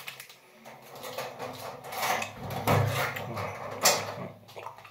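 A person eating a sour gummy candy: chewing and mouth noises with light handling rustles, and a sharp click about four seconds in.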